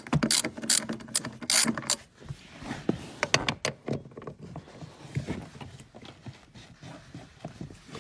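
Hand ratchet clicking in quick, uneven runs as a 10 mm socket works a seat-mounting bolt loose, loudest in the first couple of seconds.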